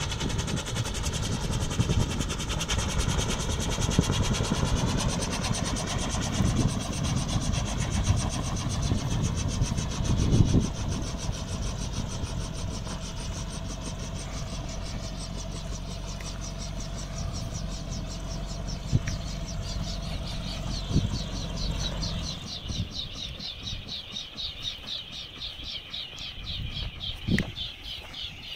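Homemade gyrocopter's Subaru EA81 flat-four car engine running as the machine lands and rolls along the ground. About three-quarters of the way through the engine drops away, leaving the rhythmic swish of the rotor blades, which slows near the end as the rotor winds down.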